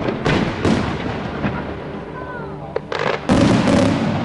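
Aerial firework shells bursting: a run of sharp bangs with rumbling echoes, the loudest and longest burst near the end.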